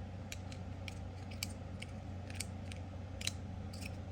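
Small, sharp clicks at an irregular pace from a magnetic fidget toy being fiddled with in the hands, its loose parts knocking and snapping together, over a steady low hum.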